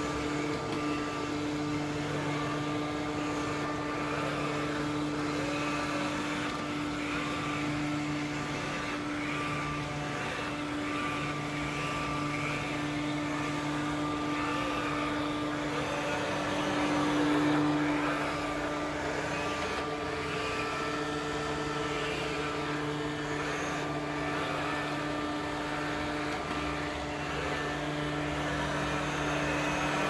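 Philips SmartPro Active robot vacuum cleaner running, a steady whirring hum from its suction fan and brush motors as it moves and its side brushes sweep the tile floor. The sound swells briefly a little past halfway.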